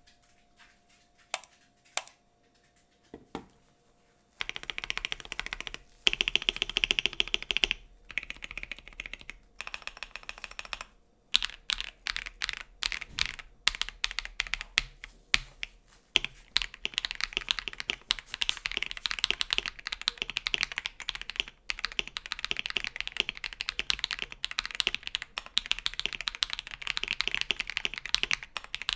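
Typing on a mechanical keyboard fitted with stock, unlubricated Akko CS Radiant Red linear switches. There are a few single keystrokes at first, then steady, fast typing from about four seconds in.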